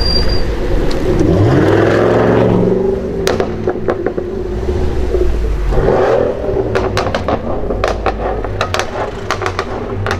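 Sports car engine revving and accelerating, its pitch climbing twice, followed by a rapid, irregular series of exhaust pops and crackles in the second half.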